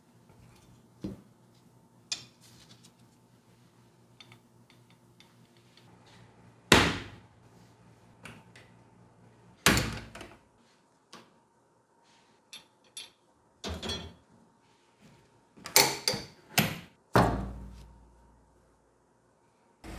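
Steel side door of a sandblasting cabinet being shut and latched: a series of sharp metal thunks and clicks, the loudest about seven seconds in, another near ten seconds, and three in quick succession near the end.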